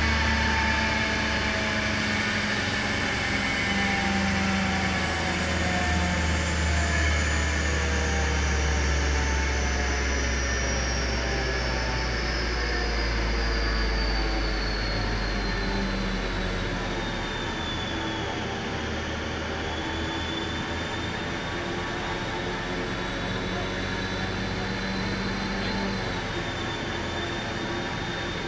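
A car's driven wheels and the rolling-road dyno rollers coasting down after a run: a whine in several pitches falls slowly for about twenty seconds and then holds steady, over a low drone that eases off near the two-thirds mark.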